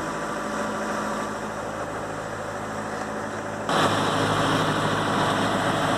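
A boat engine running steadily at low revs. About two-thirds of the way through, the sound jumps abruptly louder and fuller.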